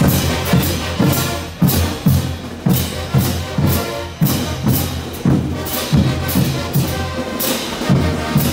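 Bolivian marching brass band playing: pairs of hand cymbals crash close by about twice a second, over a steady bass drum beat and sustained tubas and trumpets.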